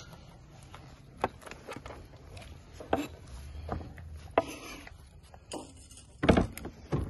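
Knife blade scraping and tapping on a wooden cutting board as chopped onion is swept off into a plastic bowl of minced beef, in scattered short knocks. The loudest knock comes near the end.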